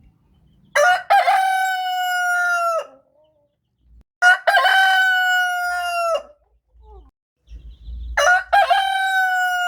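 A rooster crowing three times, each crow a few short broken notes running into a long held note that drops slightly in pitch at the end; the third crow is still going at the end.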